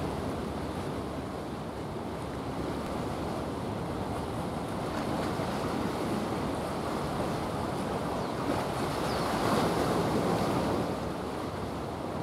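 Steady rushing of water and wind on the microphone as a cargo ship's bow wave washes past, swelling a little about three-quarters of the way through.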